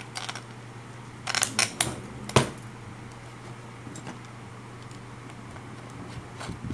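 Handling clatter of a rewound amplifier output transformer being turned over on a workbench: a short run of light clicks about a second and a half in, then one sharp knock. A steady low hum runs underneath.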